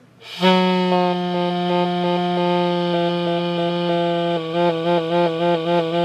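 Homemade mouth-blown diaphragm air horn, a PVC pipe with keys, an elbow and a funnel bell, sounding one low, buzzy held note. Past the middle the note breaks into rapid pulses, about four a second, then stops.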